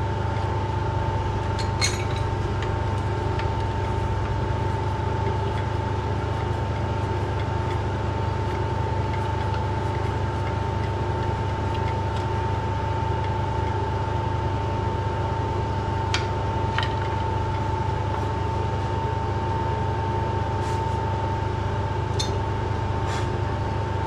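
Metalworking lathe running at a steady speed while cutting an external thread, with a constant hum and whine and a few light clicks.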